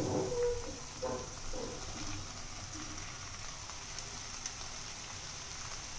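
Onion-tomato masala sizzling softly in a frying pan, with a few dull knocks in the first couple of seconds as sliced mushrooms are tipped in from a bowl.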